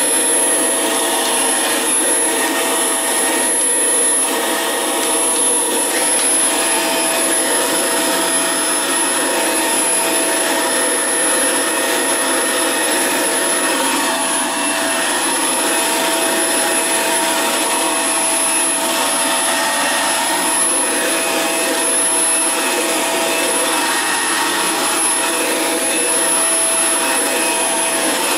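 Dyson DC24 upright vacuum cleaner running steadily while being pushed over carpet. It makes a constant rushing motor noise with a thin, high-pitched whine on top.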